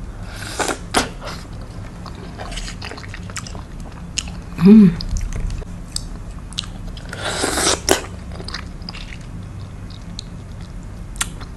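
Close-up eating sounds of soft tropical fruit: wet chewing with sharp lip and tongue smacks, a short hummed 'mm' a little before halfway, and a louder noisy burst of about half a second a little after halfway.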